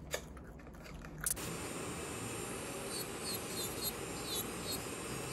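Electric nail drill (e-file) grinding off old gel nail polish: a steady hiss that starts abruptly about a second in, with faint, short high squeaks repeating in the second half.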